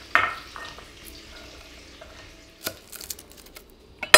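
Ghee melting in a skillet with a faint, steady sizzle, broken by a few clicks and knocks of a knife and garlic on a wooden cutting board. A sharp knock just after the start and another near the end are the loudest sounds.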